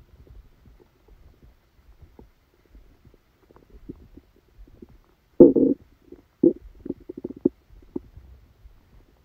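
Human stomach rumbling and gurgling from an upset stomach after a heavy meal: faint gurgles, then a loud gurgle about five and a half seconds in, followed by a quick run of short gurgles.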